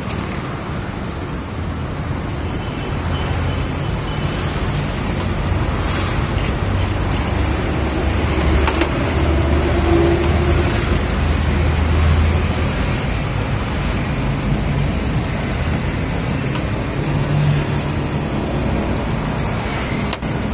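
Steady low mechanical rumble in the background, swelling and easing, with a few sharp metallic clicks about six to seven seconds in as nuts and link plates are handled on a generator's terminal board.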